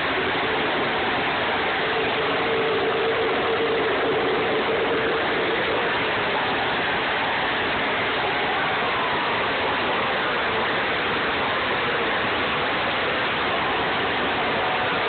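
NASCAR Nationwide Series stock cars' V8 engines running on the oval, a loud continuous din with the engine notes of passing cars sliding down in pitch. Heard through a phone's microphone, which cuts off the highs.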